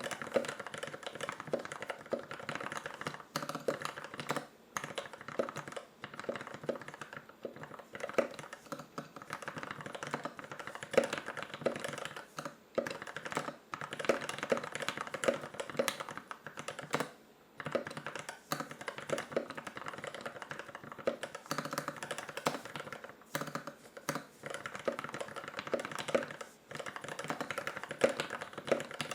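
Continuous typing on a Novelkeys NK65 Aluminum edition mechanical keyboard with lubed ZealPC Turquoise Tealios linear switches and lubed stabilizers: a rapid run of keystroke clacks, broken by brief pauses.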